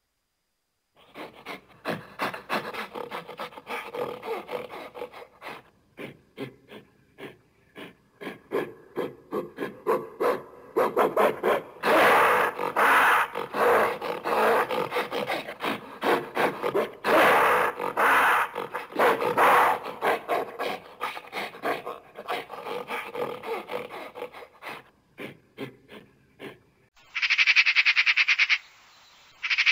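Animal calls: a long series of rapid rasping croaks, loudest in the middle. After a brief pause near the end, a different animal gives loud, evenly pulsed calls in two bouts.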